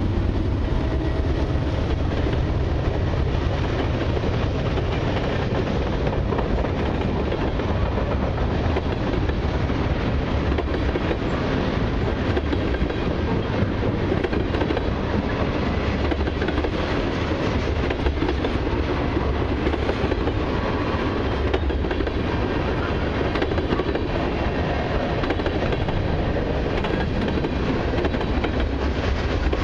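Freight cars of a long mixed train, tank cars and boxcars, rolling past close by: a steady rumble and clatter of steel wheels on the rails.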